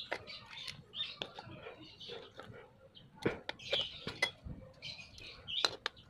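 Pliers clicking and scraping against a washing-machine motor's metal end cover while the bushing holder is crimped tight, a string of short sharp clicks with high scratchy squeaks between them.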